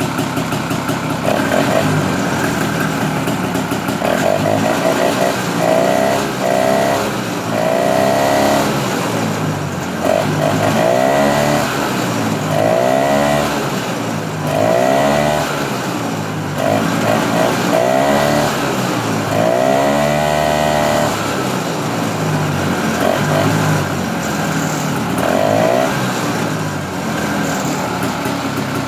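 Small air-cooled snowmobile engine running, its throttle blipped in about a dozen short bursts so the pitch rises and falls again and again, like a voice "talking".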